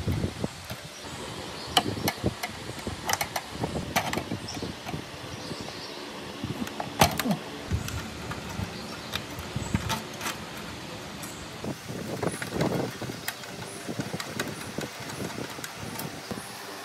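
Hand disassembly of a rusty metal smoke-machine housing: irregular clicks, scrapes and small metal knocks as a screwdriver works at the wiring and the parts are handled, the sharpest knock about seven seconds in.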